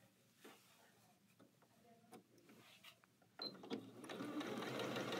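Fabric handled with a few small clicks, then a short beep about three and a half seconds in as the Janome Skyline 6 computerized sewing machine starts, running and stitching steadily from about four seconds on with its AccuFeed top-feed quarter-inch foot fitted.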